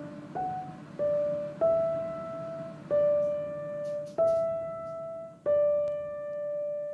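Background music: a slow piano melody of single notes struck about once a second, each note decaying, the last one ringing out and fading away.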